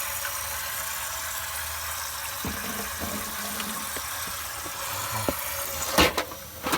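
Water spraying from a burst pipe under street supply pressure, a steady hiss, with a couple of sharp knocks near the end.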